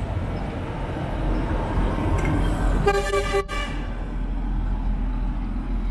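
A vehicle horn toots once, briefly, about three seconds in, and cuts off abruptly, over a steady background of street and traffic noise.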